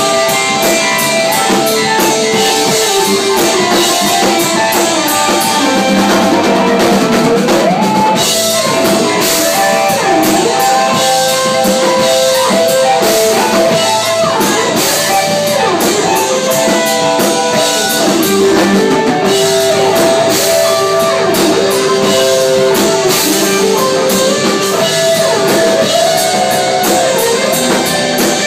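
Live rock band playing loudly: electric guitars over a drum kit with cymbals. The guitar notes often bend and slide up and down in pitch.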